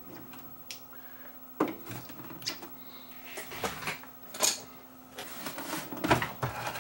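Scattered clicks and knocks of hand tools and plastic parts being handled while a CRT monitor's plastic cabinet is taken apart, one or two sharp knocks every second or so.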